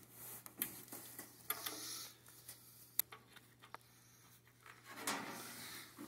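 Faint metallic clicks and scraping as a 7/8-inch open-end wrench works an O2 sensor loose from a condensing boiler's burner, with one sharp click about three seconds in.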